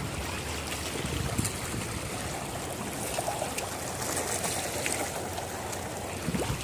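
Steady rush of moving water, an even wash with no break.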